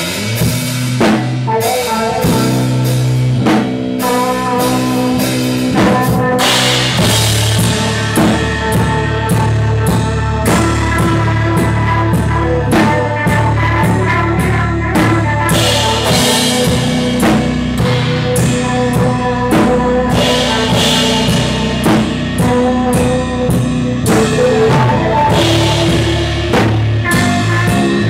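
Rock band playing in a small room: drum kit with repeated cymbal crashes and electric guitar over a heavy low end. The playing grows fuller and heavier about seven seconds in.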